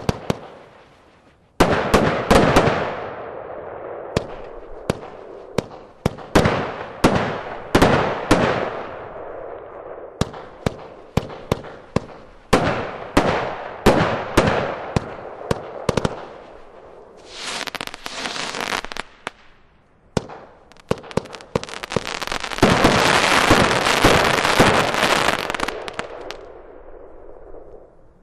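Stealth Radical Cube 25-shot fireworks cake firing, a rapid series of sharp launch reports and bursting breaks, often one to two a second. Later come two long stretches of dense hissing crackle.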